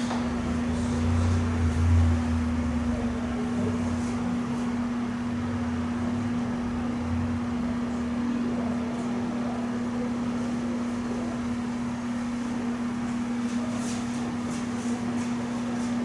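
Steady low room hum with a deeper rumble in the first few seconds. A few faint clicks of chalk on a blackboard come near the end.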